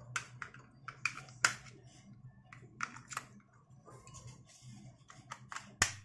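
Scattered light plastic clicks and taps as batteries are fitted into a plastic remote control, with a sharper click near the end as the battery cover snaps shut.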